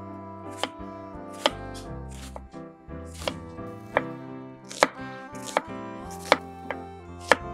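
Kitchen knife slicing an onion on a wooden cutting board: about nine sharp knocks of the blade meeting the board, roughly one every three-quarters of a second, over background music.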